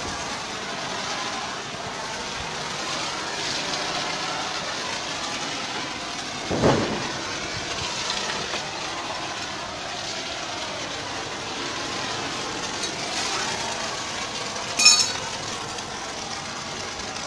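Steady hiss of snow foam spraying from a manual foam lance onto a car, with machine noise from the foam washing setup running under it. A single thump comes about six and a half seconds in, and a short high-pitched squeak near the end.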